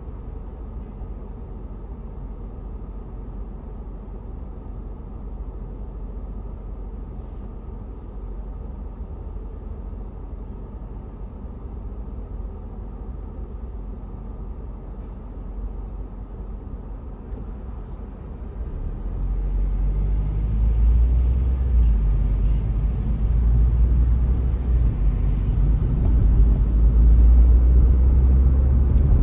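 A car's low rumble heard from inside the cabin while it waits at a light, then engine and tyre noise growing louder about two-thirds of the way in as the car pulls away and drives on.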